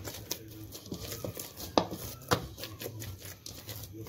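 Oiled bread dough being kneaded by hand in a plastic bowl: soft, uneven squishing broken by sharp slaps, the two loudest a little before and just after the middle.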